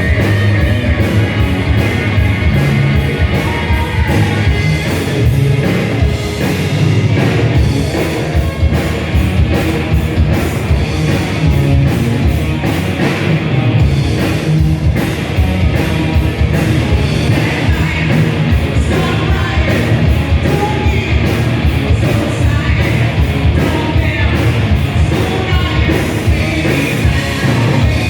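Live heavy metal band playing loud and fast: distorted guitars, bass and rapid drums, with shouted vocals.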